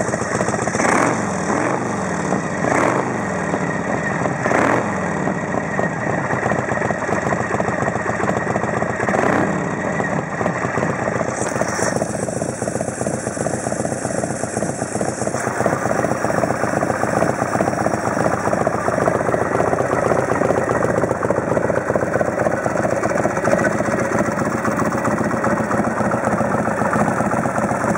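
Custom chopper's air-cooled V-twin engine running. The throttle is blipped four times in the first ten seconds or so, then it settles into a steady idle.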